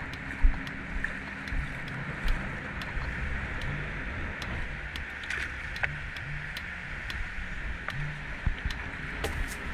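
Shallow sea water sloshing and lapping around someone wading, with scattered small clicks and knocks.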